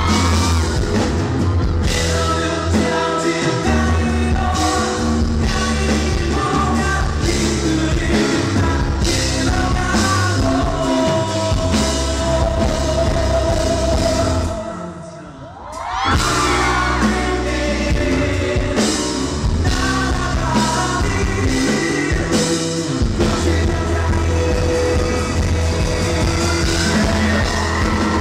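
Live rock band playing with a male lead singer belting the melody over bass and drums. About halfway through the band briefly drops away for about a second, then comes back in full with a rising vocal line.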